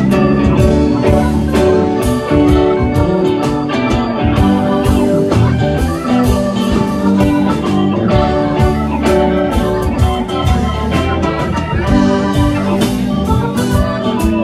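Live band playing an instrumental passage, with electric guitar and organ over a steady drum beat.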